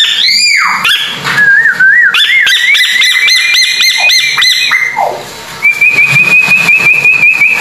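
A bird, or someone whistling, giving a varied series of clear whistled notes: up-and-down glides, then quick repeated arched notes, then one held, wavering whistle over the last two seconds. A fast, even run of clicks sounds under the later notes.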